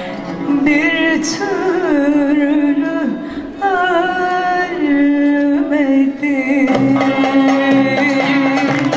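A woman sings a Turkish art-music şarkı in makam segâh, with long held notes and melismatic ornaments that bend in pitch. Plucked strings, kanun among them, accompany her and grow more prominent near the end with quick repeated strokes.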